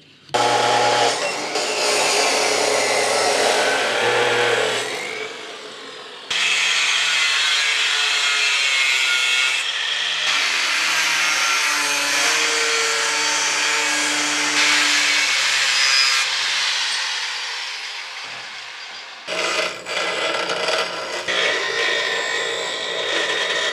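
Angle grinder and bench grinder grinding and cutting steel plate, each running steadily with a loud hiss over a low hum, in four short stretches that start abruptly. These are the steel hinge plates being cut and shaped from a cardboard template.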